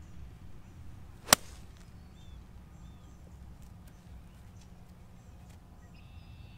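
A golf iron strikes the ball on a tee shot: a single sharp, crisp click about a second in.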